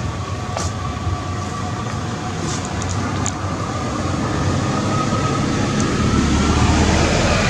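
Low, steady engine rumble, growing louder over the last few seconds.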